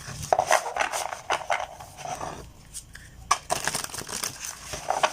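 Large tarot cards being shuffled by hand: fast papery flicking and clicking of the card edges in two spells, with a short pause about two and a half seconds in.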